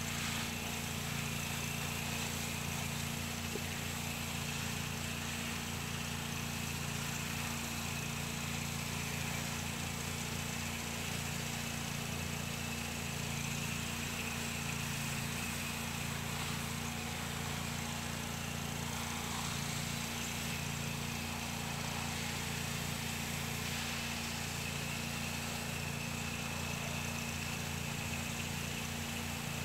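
Gas-engine pressure washer running steadily at one pitch, with the constant hiss of its wand spraying water onto vinyl house siding.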